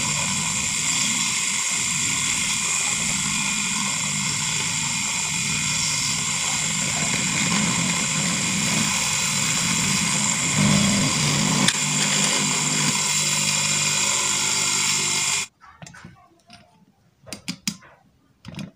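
Water-pump electric motor, rigged as a homemade grinder/cutter with a small mandrel on its shaft, running steadily with a high whine; the sound thickens briefly around ten to twelve seconds in as material is held against the spinning tool. About fifteen seconds in it cuts off suddenly, followed by a few light clicks and knocks of hands handling the shaft and attachment.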